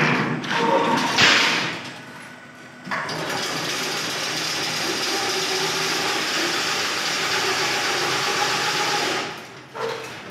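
Automatic chain-link fence weaving machine running, a steady mechanical whir that starts about three seconds in and fades near the end. A louder, rougher noise comes before it, in the first second or so.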